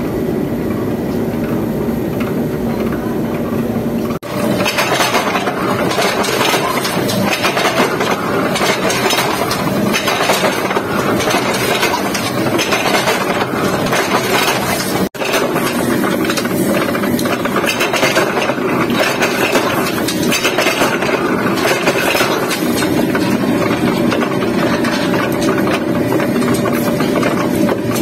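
Belt-driven mechanical forging press running with its flywheel spinning, a steady clatter of metal strikes as red-hot blanks are pressed into hex bolt heads. The din breaks off briefly twice.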